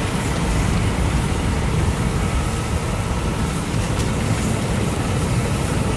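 Steady low roar and hiss of a structure fire burning close by, with a propane tank venting.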